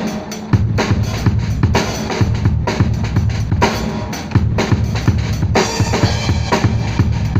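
Drum kit played live in a busy groove of bass drum and snare strokes. It picks up again with a hit about half a second in.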